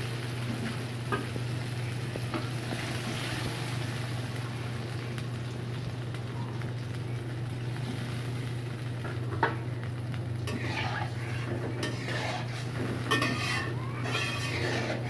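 Taro and eggplant cooking in spiced oil in a kadai, sizzling while a spatula stirs and scrapes the pan, with a few sharp metal clinks and busier stirring in the last few seconds. A steady low hum runs underneath.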